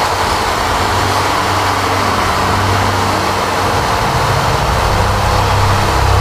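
Steady rush of engine and airflow noise inside the cockpit of an F4U Corsair in flight, from its Pratt & Whitney R-2800 radial engine.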